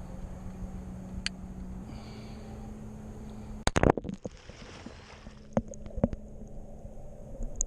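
A single close shot fired into an alligator at the water's surface about halfway through, a sharp crack, followed by splashing water and a few knocks against the canoe as the water settles.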